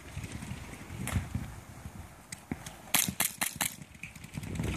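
Sharp popping shots from players' skirmish-game guns: one shot about a second in, then a quick burst of about five around three seconds in, and more pops near the end.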